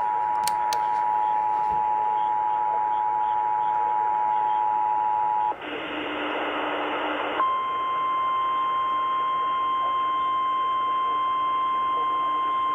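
Weather-radio alert tones over a faint broadcast hiss. First the Emergency Alert System two-tone attention signal, two steady tones sounding together, for about five and a half seconds. Then a harsh burst of noise for nearly two seconds, then the single steady NOAA Weather Radio warning alarm tone, which signals an emergency warning.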